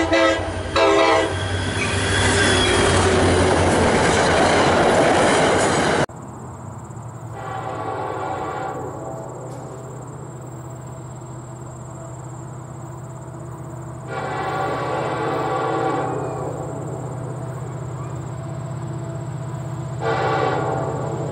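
A few seconds of loud passing trains and horns, then a distant diesel locomotive air horn sounding three blasts, each a second or two long and about six seconds apart, over a steady low hum.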